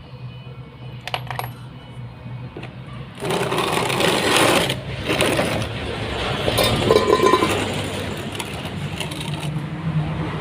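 Metal parts clattering and rattling while a washing machine is dismantled, starting about three seconds in after a few light clicks, over a steady low hum.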